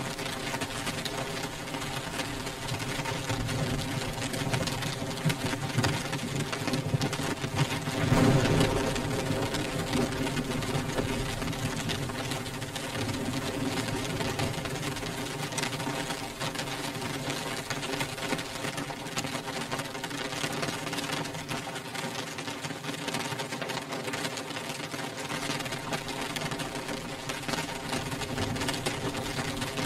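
Rain beating on window glass: a dense, steady patter of drops that swells briefly louder about eight seconds in.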